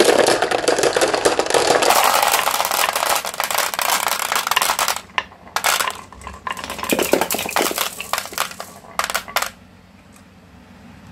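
Many glass marbles rolling and clacking together down a marble run in a dense clatter. About five seconds in it thins to a few separate clicks of single marbles, and it stops near the end.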